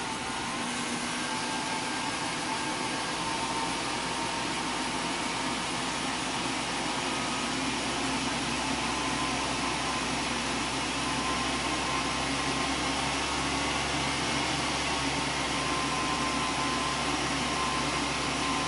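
A 2003 Chevy Silverado's 6.0-litre V8 held steadily above idle during a cold-start warm-up, heard from inside the cab as an even hum with a faint whine, slowly getting a little louder.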